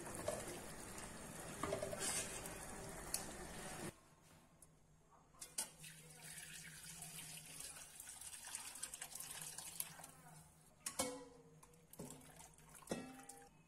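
Chicken broth bubbling at a boil in a pot, which cuts off suddenly about four seconds in. Then the broth is poured from the pot through a metal mesh strainer into a glass bowl, a running stream of liquid with a few sharp clinks of metal and glass.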